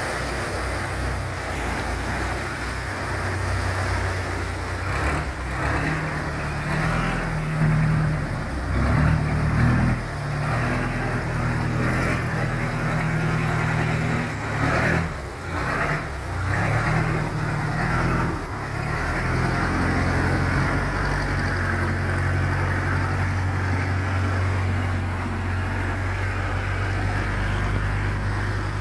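Boat engines running hard under load, pushing against the current through a sluice gate, over the constant rush of water pouring through the gate. The engine speed rises and falls in the first half, then holds steady.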